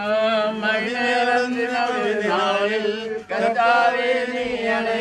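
Malayalam funeral hymn sung in a slow, drawn-out chant over a steady held note.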